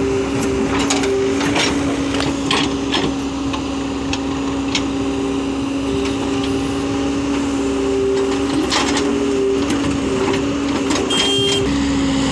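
Case 770EX backhoe loader's diesel engine and hydraulics running with a steady hum while it works its backhoe bucket. Scattered knocks and clatter come from soil and clods dropping into a steel tractor trolley.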